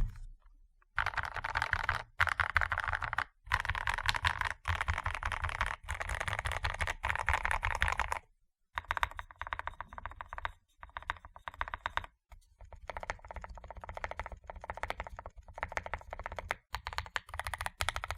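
Fast typing on a modded Akko PC75B mechanical keyboard with lubed Akko Jelly White linear switches and sound-damping foam in the case: a dense stream of keystroke clacks in runs of a few seconds, broken by short pauses. After about eight seconds the keystrokes sound duller, with less treble.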